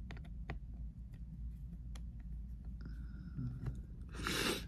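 Faint scattered clicks of a small precision screwdriver working a tiny screw on a laptop logic board, over a low steady hum. Near the end, one short loud sniff.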